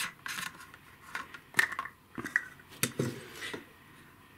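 Plastic waterproof camera case for a DJI Pocket 2 being handled: a last rasp of the screw-on lid's threads, then a few sharp plastic clicks and knocks as the lid comes off. The sound stops about three and a half seconds in.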